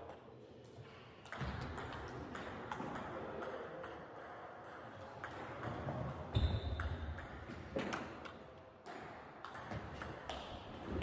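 Table tennis ball clicking off rubber bats and bouncing on the table in quick, irregular strokes during rallies. A heavier low thud comes about six seconds in.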